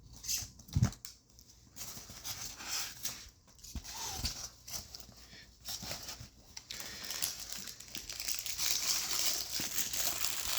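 Packaging wrap crinkling and rustling as parts of a boxed resin statue are unwrapped by hand, with scattered clicks and a short knock about a second in. The rustling grows steadier over the last few seconds.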